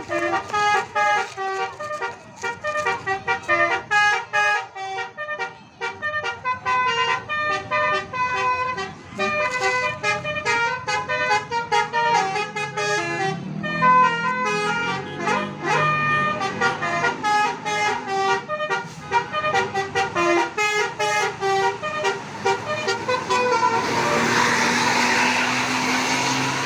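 Bus telolet horns playing fast melodic runs of short notes that jump between pitches, tune after tune. Near the end a loud hiss rises under the horn notes.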